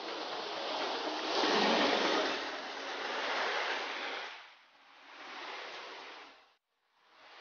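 A small stream rushing over a rocky cascade, a steady rush of water. It drops away about four seconds in, leaving a fainter rush that cuts off briefly near the end.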